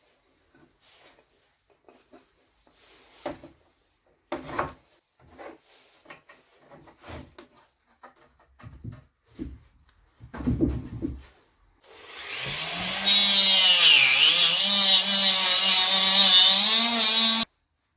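Light knocks and taps of wooden parts and small hardware being handled. Then, two-thirds of the way through, a power tool fitted with a sanding drum spins up and sands the edge of a bent laminated wooden rocker. Its motor pitch sags briefly under load, and it cuts off near the end.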